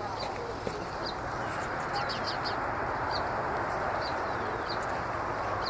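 Small birds chirping: short, high, falling chirps, scattered irregularly over a steady rushing noise.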